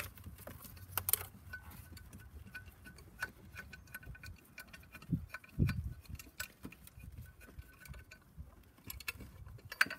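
Ratchet wrench clicking in short runs as a 13 mm socket on a swivel extension turns a bolt in, with a sharper click about a second in.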